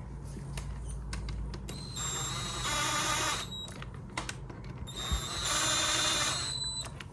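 Small cordless power tool running the connecting rod cap bolts down on a Yanmar diesel engine, in two short whining runs of about a second and a half each.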